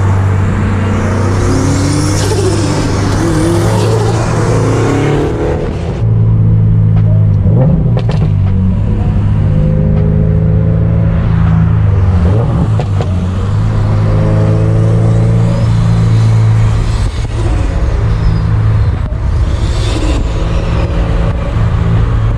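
Car engine running and road noise heard from inside the cabin while driving in traffic, with a steady low drone and the revs rising and falling now and then.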